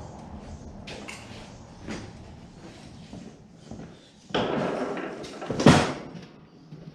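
Lawn tractor engine running low in the first second or so, then fading away; about four seconds in comes a rustling, handling noise, followed by a single loud thump.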